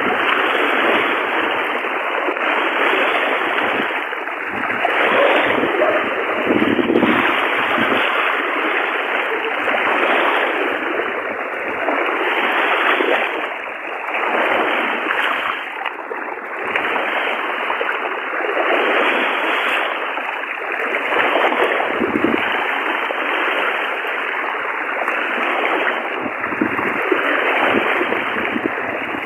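Rushing floodwater, a loud, steady rush of water that swells and eases a little throughout.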